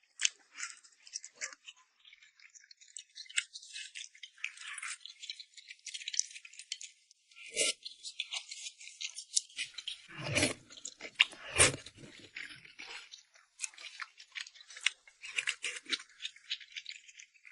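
A person chewing food close to the microphone: a dense run of small wet clicks and crackles, with a few louder thumps around the middle.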